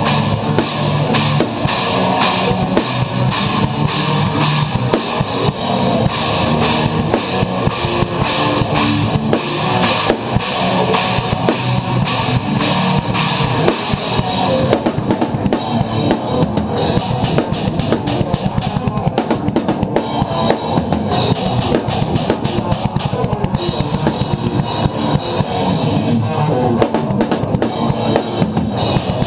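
Rock drum kit played along to a progressive metal track: rapid bass drum and snare hits under steady cymbal strikes, over sustained pitched instruments. The dense cymbal wash thins out about halfway through.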